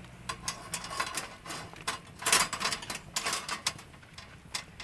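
Light, irregular metal clinks and scrapes as a wire grill grate is set and shifted on a folding steel fire pit (Nature Tones Fusion Grill), with a wood fire crackling beneath it. There is a denser run of clicks about two seconds in.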